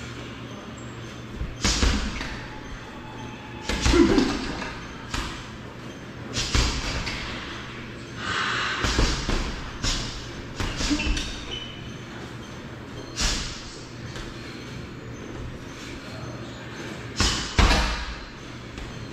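Punches and kicks landing on a hanging heavy bag: irregular thuds, some single and some in quick pairs, with pauses of a few seconds between combinations.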